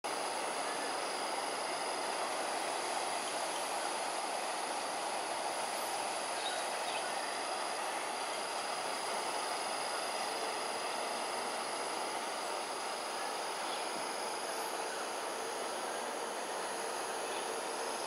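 Steady rush of water flowing out of concrete drain culverts, an even noise with no breaks, with insects trilling in a steady high tone above it.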